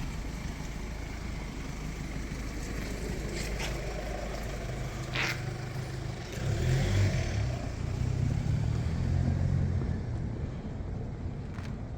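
Street sound with a car driving by, getting louder from about six seconds in and fading after about nine seconds. A few short clicks are heard along the way.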